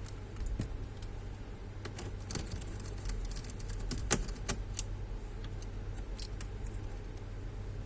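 Scattered small clicks and light metallic clatter of computer parts, screws and tools being handled, densest and loudest a little past the middle, over a steady low hum.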